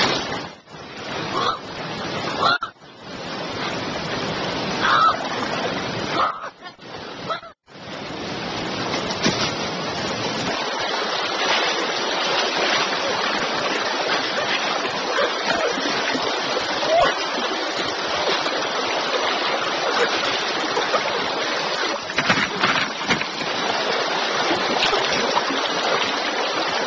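Rushing river rapids: a steady wash of white water, cut off abruptly several times in the first eight seconds and then running on unbroken.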